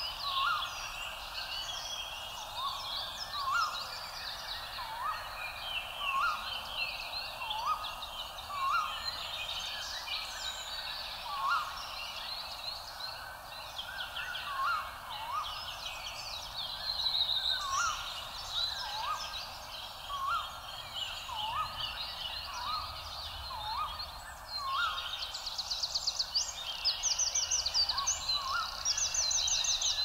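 A dense chorus of birds chirping, with a short upward-sliding call repeated every second or two under it, and a fast trill joining in near the end.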